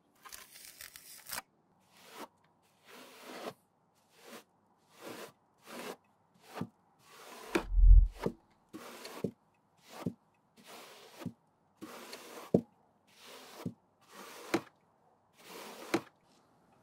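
Steel trowel scraping wet mineral putty across a mineral-wool insulation slab in short repeated strokes, about one a second, many ending in a sharp tap. A loud low thump comes about eight seconds in.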